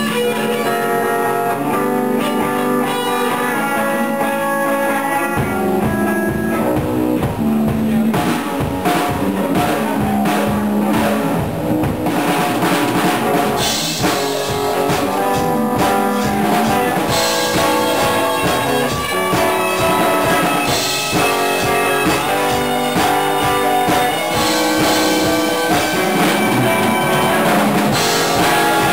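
A rock band rehearsing live: electric guitars with a drum kit. The guitars play alone at first, and the drums come in about five seconds in and keep a steady beat with cymbals.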